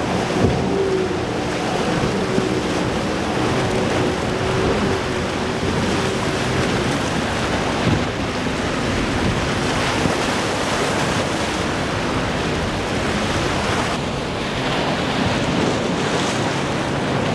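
Boat engines running through an inlet over waves and surf, with wind buffeting the microphone. A steady higher engine tone fades out about seven seconds in, and lower engine tones come up later.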